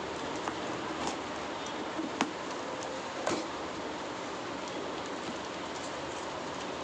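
Utility knife cutting packing tape along the seam of a cardboard box: a few sharp clicks and scrapes, the loudest about two and three seconds in, over a steady background hiss.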